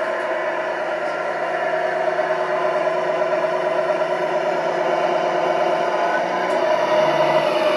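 Tamiya King Hauler RC tractor truck running with a steady engine-like hum that slowly grows louder as it drives closer.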